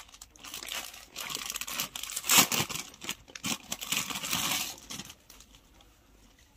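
Crinkling and rustling of a packed suit piece being handled and unfolded by hand, in uneven bursts that stop about five seconds in.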